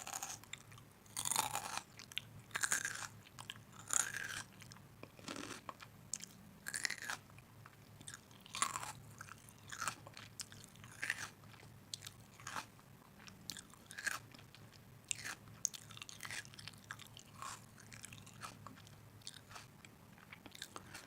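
A person biting and chewing crunchy food, with irregular crisp crunches about once or twice a second.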